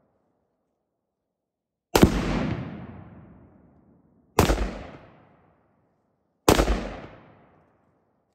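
Exploding targets going off as AR-15 rounds hit them: three sharp booms, the second about two and a half seconds after the first and the third about two seconds after that, each dying away over a second or more.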